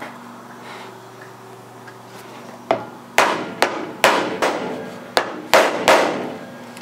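Mallet blows on a wooden table foot, driving a threaded insert into its hole until it is seated. About eight sharp strikes in quick, uneven succession begin roughly three seconds in.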